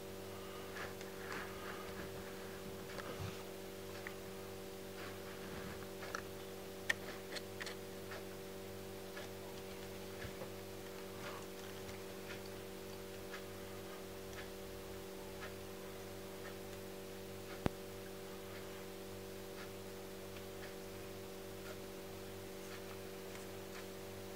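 Faint clicks and taps of a Sigma 70-300mm zoom lens being handled and turned in the hands, over a steady electrical hum. Two sharper clicks stand out, one about a third of the way in and one about three quarters through.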